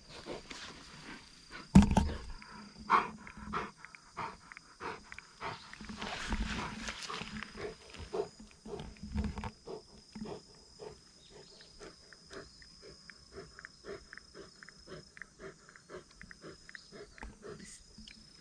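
Bernese Mountain Dog giving low play-growls while mouthing a person's hand, then panting in short, even puffs about three a second.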